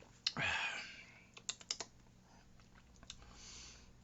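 A man tasting a sip of pale ale: a short slurp and breathy sound a little after the start, then a quick run of lip smacks and tongue clicks about a second and a half in, and a soft breath near the end.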